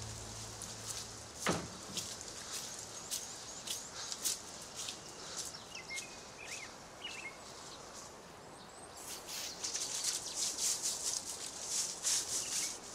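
Outdoor ambience: short, scattered bird chirps over a light hiss, with a brief swish about a second and a half in. A denser rustling and scuffing stretch comes in over the last few seconds.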